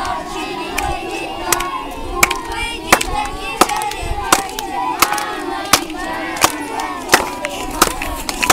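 Rhythmic clapping in unison, about three sharp claps every two seconds, with many children's voices calling out together over it.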